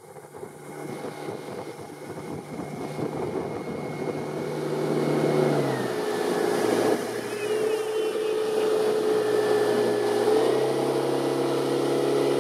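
Motorboat engine towing a tube at speed, over rushing water and spray. The engine's pitch drops about six seconds in and rises again at about ten and a half seconds, with the throttle being eased and reopened. It grows louder through the first few seconds.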